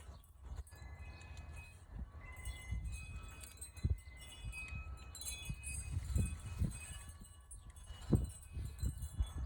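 Metal hand tools clinking and ringing lightly while the 10 mm bolt of a VVT solenoid is tightened, with a few dull knocks.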